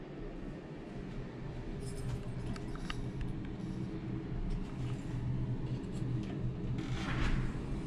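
Steady low rumble with a few light clicks of handling. Near the end, a sliding glass bathroom door is pulled open on its track.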